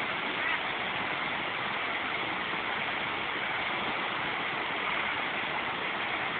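Fast whitewater rushing over rocks: a steady, unbroken rush of water.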